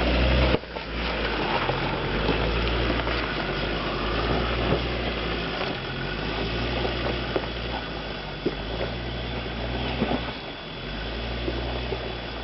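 Land Rover Discovery's 2.5-litre Tdi four-cylinder turbodiesel running at low revs off-road, its sound dropping suddenly about half a second in. A few sharp knocks sound over the engine.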